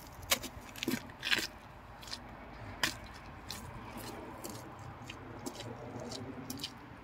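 Footsteps crunching on wet gravel and slush, loudest in the first second or two and then fainter as the walker moves away, over a faint low hum.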